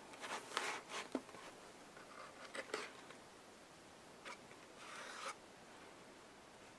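Fingers rubbing and pressing on paper and tape, burnishing a strip of duct tape down on a paper pop-up butterfly in a board book: faint, short scraping rustles, with one longer rub about five seconds in.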